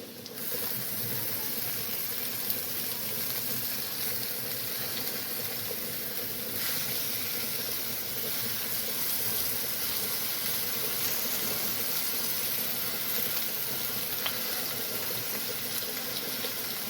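Steady sizzling hiss of potatoes frying in oil in a pan. It grows louder about a third of a second in and again around six and a half seconds in.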